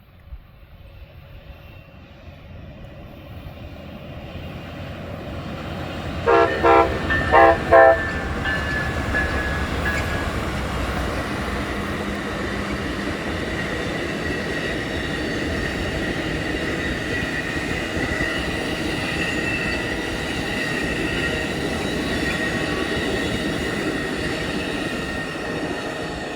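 Amtrak Sunset Limited passenger train approaching, its locomotive horn sounded in four short blasts in two quick pairs. The train then passes with a steady rumble of wheels on rail and a thin high squeal over it.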